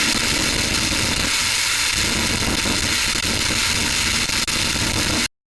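Hard electronic static: a loud, steady hiss strongest in the upper range, cutting off suddenly near the end.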